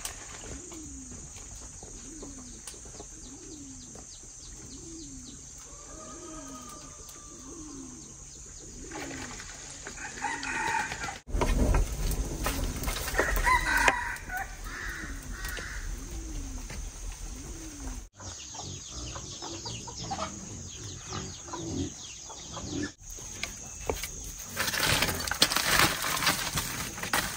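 A rooster crows once, about a quarter of the way in, with chickens clucking around it. Near the end, a wood fire in a brick clay oven crackles and knocks as it is poked with a stick.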